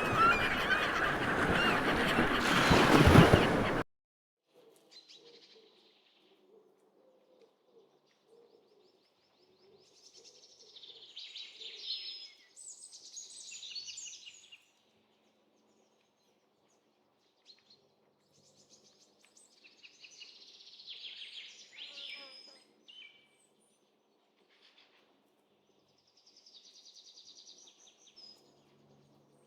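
A loud, dense din cuts off suddenly about four seconds in. Then small birds chirp and sing in short phrases, with long pauses between them.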